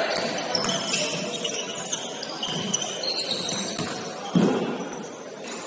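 Basketball shoes squeaking on a gym floor during play: many short, high squeaks scattered through, over the echoing noise of the hall, with one thud about four and a half seconds in.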